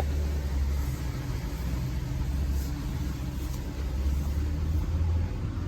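A 2020 Jeep Gladiator Rubicon's 3.6 Pentastar V6 running at low revs while the truck crawls along an off-road trail, heard from inside the cab as a steady low rumble.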